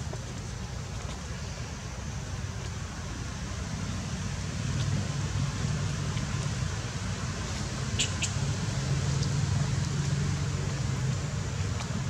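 A low, steady motor hum that grows louder after about four seconds, over an outdoor background hiss, with two sharp clicks about eight seconds in.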